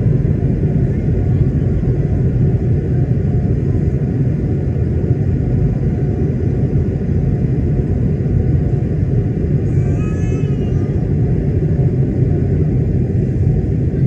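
Steady low rumble of an Airbus A220-300 in flight, its Pratt & Whitney geared turbofans and airflow droning through the cabin. About ten seconds in, a brief high wavering sound rises over it.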